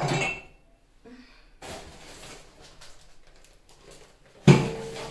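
Household objects being handled: a brief clatter at the start, a stretch of rustling, then a sudden knock about four and a half seconds in that rings briefly.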